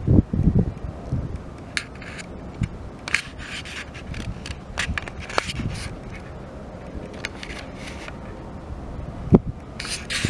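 Scattered light scrapes and clicks, with low rumbling wind gusts on the microphone at the start and again near the end; no aircraft engine is clearly heard.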